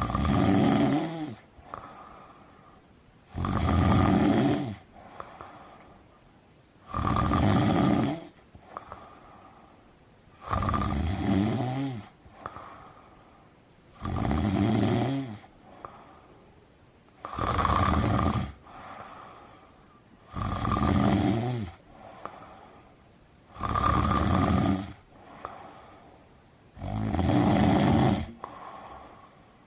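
Loud snoring, nine long rasping snores at a steady rhythm, about one every three and a half seconds, with quieter breaths between them.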